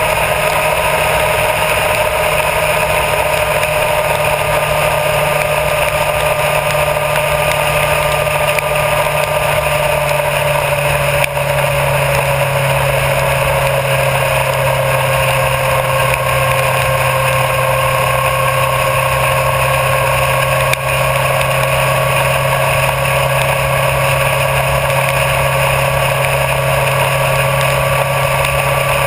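Honda CBR1000RR Fireblade's inline-four engine running at a steady road cruise, with wind and tyre noise. The engine note eases slightly lower partway through, then holds steady.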